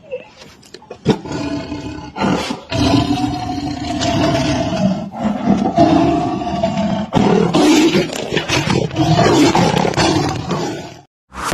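A big cat roaring: a couple of short calls, then a long run of loud roaring from about three seconds in that stops abruptly near the end.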